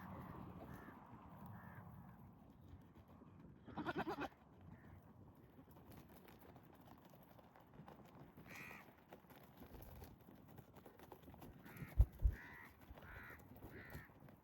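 A goat bleats once, briefly, about four seconds in. Later a bird calls several times in short calls, and two dull thumps come near the end.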